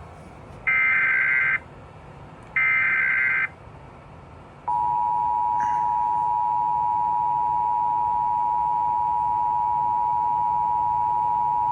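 Emergency Alert System SAME header: two bursts of digital data tones, about a second each, followed by the EAS two-tone attention signal (853 and 960 Hz) starting about five seconds in and holding steady. It is the opening of an Amber Alert (child abduction emergency) as relayed by a DASDEC EAS decoder.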